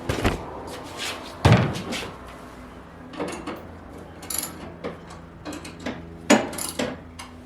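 Irregular knocks, clunks and clicks of hard objects being handled. The loudest knock comes about one and a half seconds in, with other heavy ones at the start and about six seconds in, and lighter taps in between.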